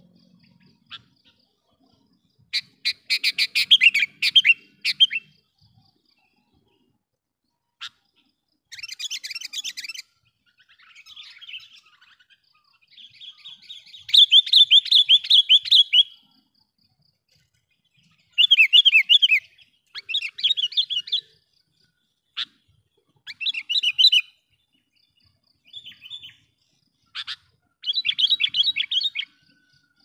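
Sooty-headed bulbul (kutilang) calling in a series of short bursts of rapid repeated notes, each burst lasting up to about two seconds with pauses between. The longest run comes about halfway through.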